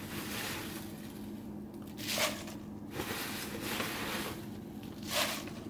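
Fresh spinach leaves being handled and dropped into a bowl on a kitchen scale: soft rustles, about two seconds in and again near the end, over a faint steady hum.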